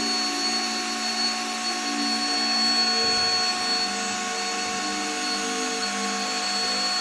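Power drill running at high speed with a steady high whine, spinning a string of balloons.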